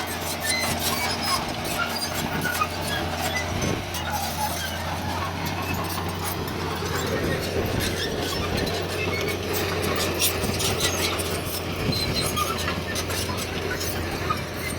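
Heavy earth-moving machinery at work: a diesel engine running with a steady low drone, with scattered metallic squeaks and clanks over it.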